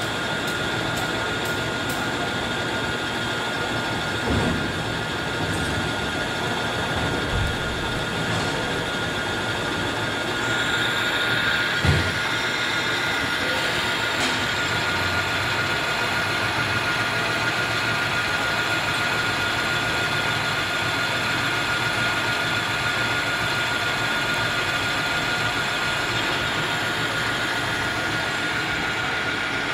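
Metal lathe running, its spindle turning a steel shaft held between the chuck and the tailstock centre while the tool takes a turning cut. A steady high whine sits over the even machine noise, with a brief knock about 12 seconds in.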